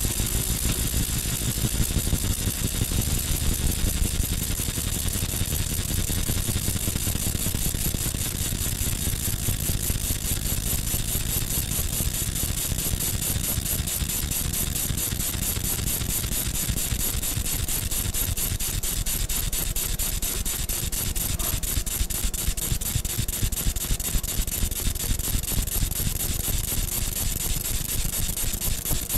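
Laser engraver running steadily while engraving a copper coin: a continuous machine whir with a fast, even buzz.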